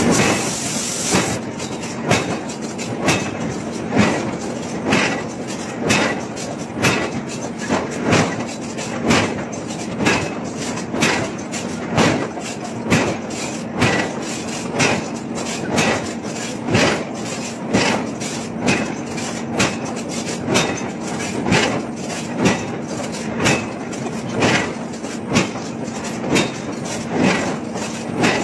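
Heavy open-die forging of a hot steel cylinder: regular metallic knocks, the strongest about once a second with fainter ones between, over a steady machinery hum.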